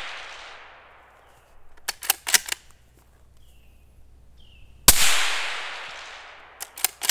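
Suppressed 300 Blackout bolt-action rifle (Ruger American Ranch, 16-inch barrel, YHM R9 suppressor) firing one 110-grain supersonic round about five seconds in, a sharp shot whose ringing dies away over about a second and a half. A few quick metallic clicks of the bolt being worked come about two seconds in and again just before the end, and the tail of the previous shot is fading at the start.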